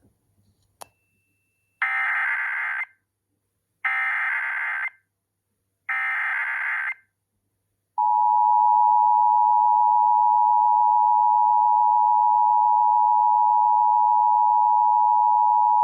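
Emergency Alert System test header: three one-second bursts of screeching SAME digital data tones, about a second apart, then the steady two-tone EAS attention signal, which starts about eight seconds in and holds to the end.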